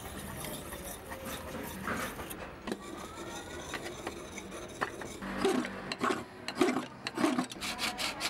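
A steel blade rubbed back and forth on a whetstone, then a blade scraping out the bowl of a hand-carved wooden spoon in short, rapid strokes. The strokes grow louder from about halfway through.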